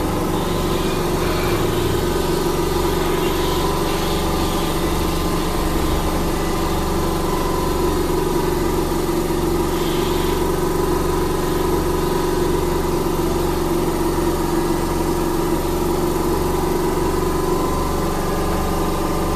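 Electric commuter train standing at a platform, its onboard equipment humming steadily, with a slow, even throb underneath.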